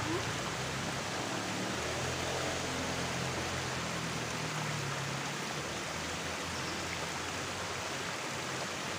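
Steady rush of a river's water babbling, with a faint low hum in the first half.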